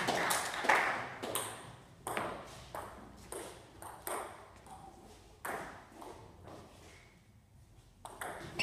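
Table tennis ball ticking sharply off the table and bats, about one to two ticks a second and fading. After a short lull, the ticks start again near the end.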